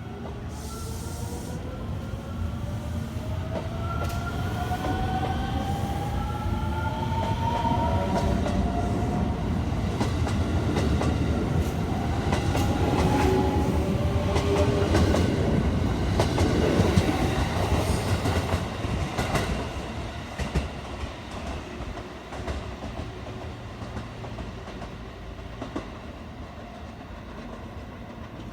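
JR West 281 series "Haruka" electric train pulling out and accelerating: the motor inverters give a whine of several tones that climbs steadily in pitch. Then comes a louder rolling rumble with rail-joint clatter as the cars pass, fading near the end.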